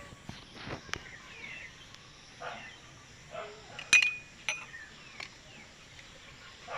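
A sharp glass clink about four seconds in, with a brief ringing, among a few softer clicks and knocks of a drinking glass being handled.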